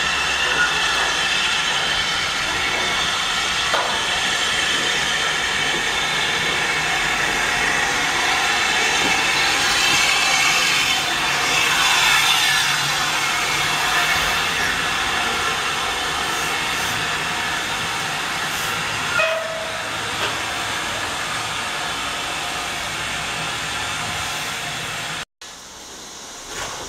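T9 steam locomotive No. 30120 hissing steam steadily and loudly, loudest about halfway through. The hiss cuts off abruptly near the end.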